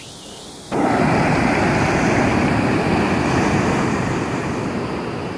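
Ocean surf breaking and washing up onto a sandy beach, with some wind on the microphone. The sound jumps up abruptly under a second in, after a short quieter stretch, then slowly fades.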